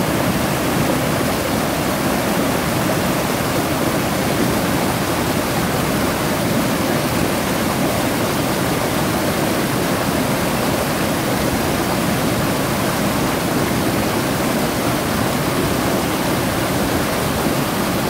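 Small woodland waterfall on a stream swollen by heavy rain, muddy water pouring over a rock ledge and splashing steadily and loudly.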